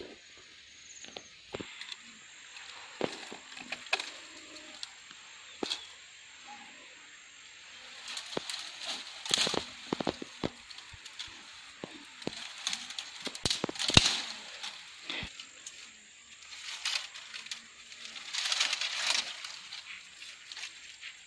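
Dry branches and twigs being snapped off by hand and dragged through dry brush: scattered sharp cracks with bursts of rustling, the loudest crack about two-thirds of the way through.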